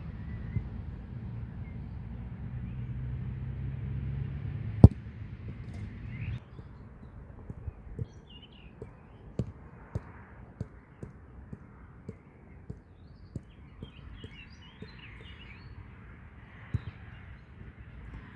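Outdoor ambience: a low rumble in the first six seconds, broken by one sharp, loud knock about five seconds in, then a run of light irregular taps with faint bird chirps near the end.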